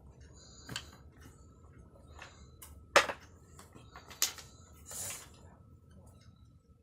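Wooden toy blocks clacking and knocking together as they are handled and stacked: a handful of sharp knocks, the loudest about three seconds in, with a short scraping noise about five seconds in.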